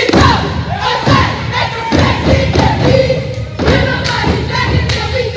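Cheerleaders chanting a cheer in unison over rhythmic thumps, with crowd noise from the gym around them.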